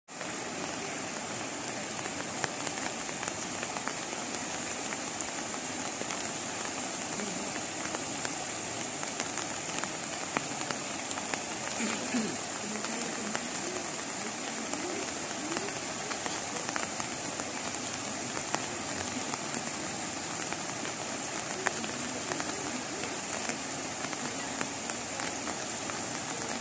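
Floodwater running across a road: a steady, even rush of water with many small ticks, and faint voices in the background around the middle.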